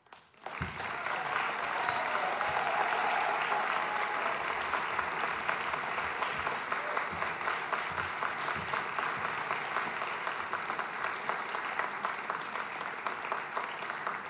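Audience applauding, starting abruptly about half a second in and holding steady.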